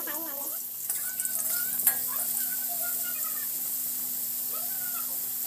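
Potato chunks sizzling as they shallow-fry in hot oil in an aluminium kadai, turned with a metal spatula, with one sharp clink of the spatula on the pan about two seconds in.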